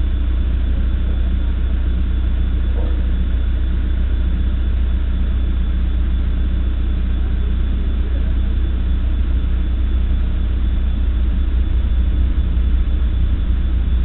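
Backhoe engine running steadily.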